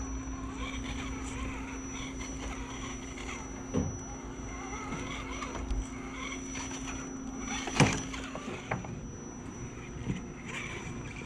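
Axial SCX10 RC crawler's electric motor and drivetrain whining, rising and falling with the throttle as the truck crawls over rock. Several sharp knocks of the truck against the rocks, the loudest about two-thirds of the way through, over a steady low hum.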